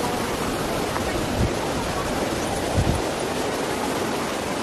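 Steady rush of a rocky mountain stream running over rapids, with two short low thumps about a second and a half apart, from footsteps or handling.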